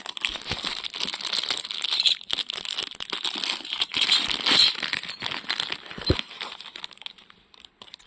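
Crinkly wrapper or packaging being handled, a dense irregular crackling and rustling that thins out near the end, with a soft knock about six seconds in.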